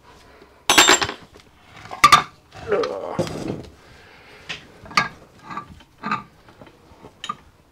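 Spanner and steel parts of a Stuart P10a steam engine's connecting-rod big end clinking as the big-end nuts are nipped up. A string of irregular sharp metal clinks and knocks, loudest about one and two seconds in, with a brief scrape in between.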